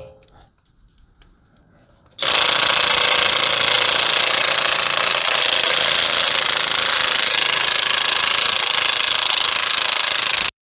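DeWalt cordless 1/2-inch impact wrench hammering steadily on a truck's lug nut to break it loose and spin it off. It starts about two seconds in, runs for about eight seconds without a break, and cuts off suddenly near the end.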